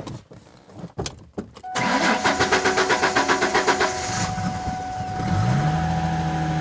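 A few clicks, then the 2000 Ford Mustang's 3.8-litre V6 cranks on the starter, pulsing rapidly for about two and a half seconds with a steady high tone over it. It catches, revs up and settles into a steady idle. It starts easily on the first try after a fuel filter change, fuel drawn through the new filter.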